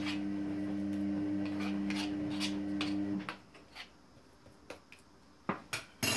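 A spoon scraping and knocking against a bowl of thick çemen paste in short repeated strokes, a few sharper knocks near the end. Under it a steady low hum runs until about halfway, then stops.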